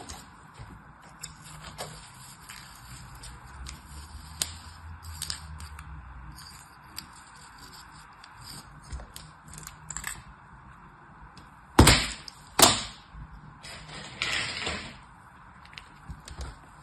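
Kinetic sand crackling and scraping as a small tool works it in a plastic starfish sand mould. About twelve seconds in come two sharp knocks as the mould is tapped down on the table to turn the sand out, then a rougher scrape.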